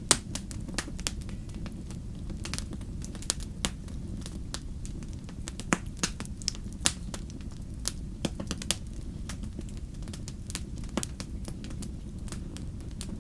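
Campfire burning, with irregular sharp crackles and pops of the wood, several louder snaps among them, over a steady low rush.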